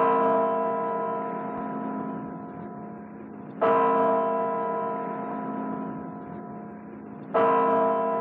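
A deep bell struck three times, about every three and a half seconds. Each stroke rings on in several steady tones and slowly fades before the next.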